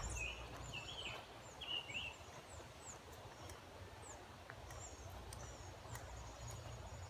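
Birds singing outdoors: a quick run of short chirps in the first two seconds, then fainter, higher chirps. A steady high buzz starts near the end, over a low rumble of wind on the microphone.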